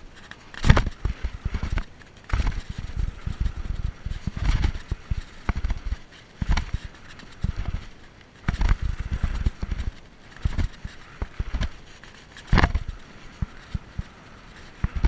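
Mountain bike clattering over a rocky trail on a fast descent: irregular knocks, thumps and rattles, with bursts of low rumble.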